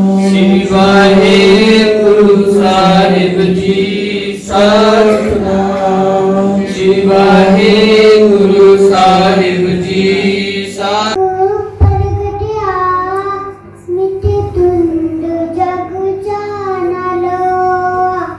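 Sikh devotional singing: a group of voices chants over a steady drone. About eleven seconds in, the sound cuts abruptly to children singing a hymn melody, with a couple of low thuds soon after.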